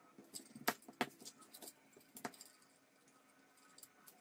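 Light handling noise of a plastic timer housing and its wiring: a few short, sharp clicks and taps in the first half.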